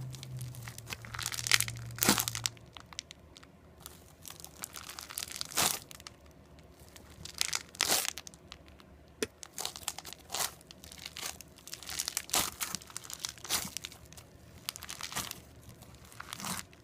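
Crunchy slime being squished and pressed, giving irregular sharp crackles and pops with short quieter gaps between them.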